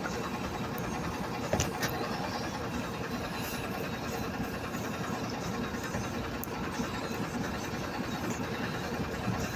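An engine idling steadily, with a couple of short clicks about one and a half to two seconds in.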